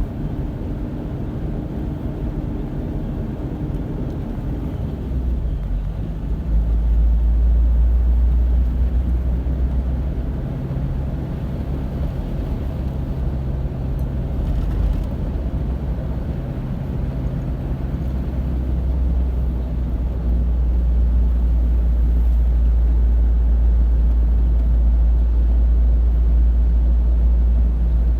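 Motor vehicle driving on the road: a steady low engine and road rumble, with engine tones that shift in pitch now and then. It grows louder about six seconds in and again about twenty seconds in.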